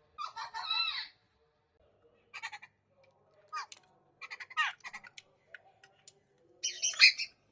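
Domestic fowl calling in several short bursts with pauses between them, the loudest near the end.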